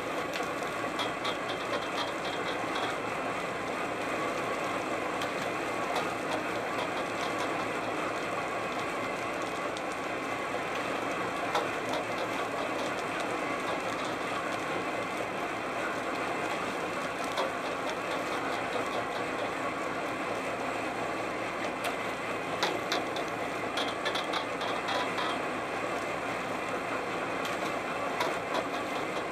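Steady running of a salmon seiner's engine and deck machinery, with two short spells of rapid rattling clicks, one near the start and one near the end.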